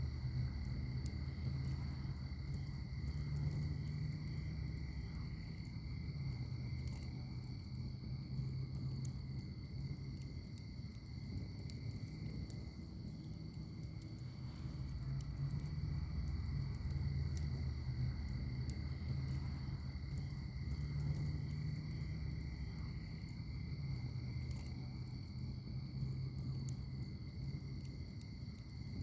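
Wood fire burning in a firepit: a low, wavering rumble of flames with scattered small crackles and pops. A steady high trill runs behind it throughout.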